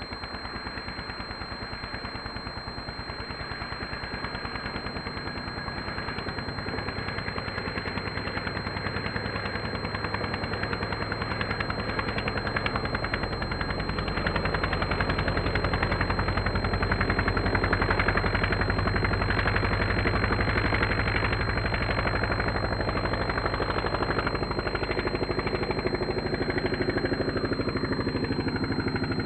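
Laser 180 four-stroke model aircraft engine in a large RC Tiger Moth biplane, running with a rapid popping beat at low throttle as it taxis, then opened up and louder from about halfway through for the takeoff run and climb-out.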